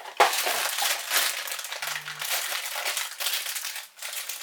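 Packaging crinkling and rustling as a Funko Mystery Mini blind box is opened by hand, with a sharp snap just after the start.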